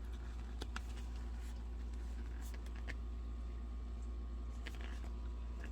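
Faint scattered clicks and light rustles of a CD album package and its contents being handled, over a steady low hum.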